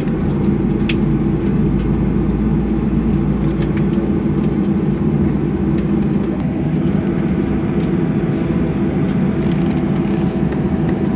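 Steady cabin noise inside a jet airliner on the ground: a low rumble and rush from the engines and air conditioning. From about six seconds in a faint, thin whine joins it.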